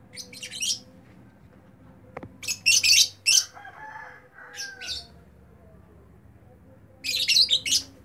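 Lovebirds chirping and squawking shrilly in four short bouts of rapid chatter: one at the start, the loudest about two and a half seconds in, a brief one near five seconds, and another about seven seconds in.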